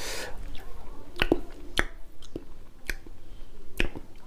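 Close-up mouth sounds of a person eating: chewing with a series of sharp, wet lip smacks and mouth clicks, about six of them, half a second to a second apart.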